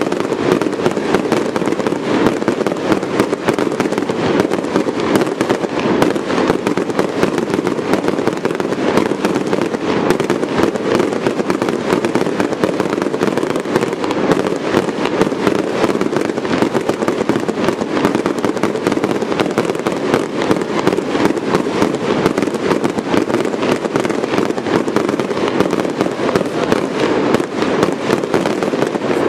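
Fireworks display: a dense, unbroken barrage of aerial shell bursts, many bangs a second, at a steady loudness.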